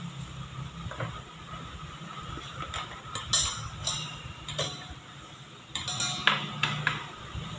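Scattered clicks and light metal clinks from handling an electric hand mixer, its steel beaters knocking against a stainless steel mixing bowl holding eggs and sugar; the motor is not yet running.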